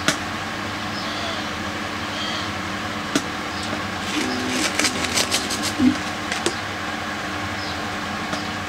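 A steady background hum under a few light clicks and small rattles from handling seedlings and gravelly substrate, with a cluster of clicks about halfway through.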